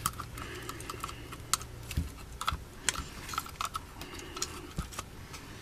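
Irregular light clicks and taps of plastic chassis parts and wires being handled on an RC rock-crawler chassis.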